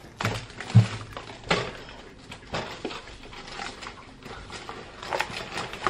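A handful of short knocks and rustles as paper grocery bags are handled and set down on a stovetop, with a small dog moving about close by. The loudest knock comes near the start.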